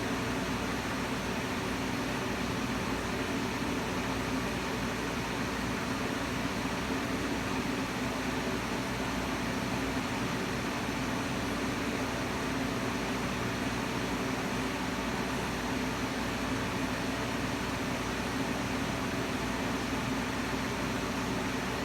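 Steady, unchanging hum with a constant hiss.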